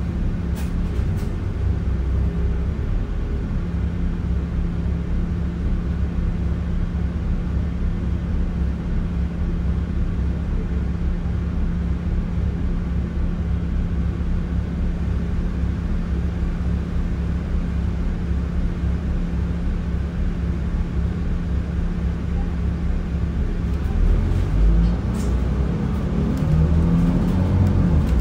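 Interior of an Alexander Dennis double-decker bus: a steady drone of the engine and the air-conditioning. Near the end the engine note rises as the bus accelerates.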